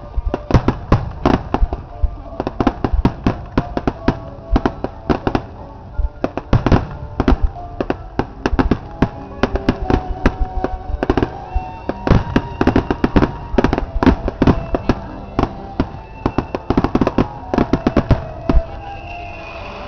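A rapid barrage of aerial firework shells bursting, several sharp booms a second, over music played for the display. The booms stop shortly before the end while the music carries on.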